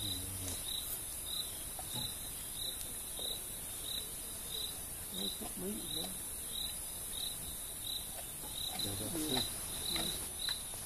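A cricket chirping steadily, about two short chirps a second, over a steady high hiss.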